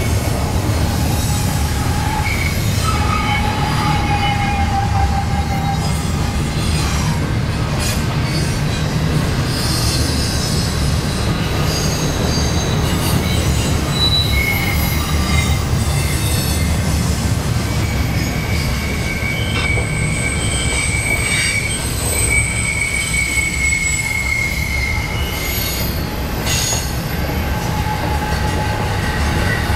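Double-stack intermodal freight train cars rolling past with a steady, loud rumble. Wheel flanges squeal in thin, sustained tones at several pitches that come and go, the longest high squeals starting about twenty seconds in, from the train taking a sweeping curve.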